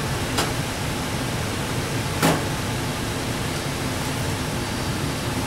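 Steady, even background hiss and hum, with two short sharp clicks: one just after the start and one about two seconds in.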